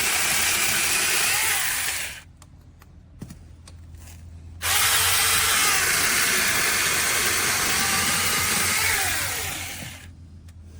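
Cordless electric mini chainsaw running and cutting wood in two runs: a short one that stops about two seconds in, then a longer one of about five seconds that starts abruptly and winds down near the end.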